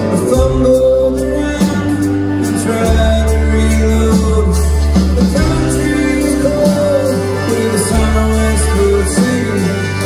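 Live country band playing a song, with steady held bass notes under guitars and singing.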